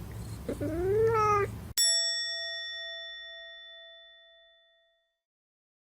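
A cat meows once, with a long rise and fall in pitch. Then a single bright bell-like ding is struck and rings out, fading away over about three seconds.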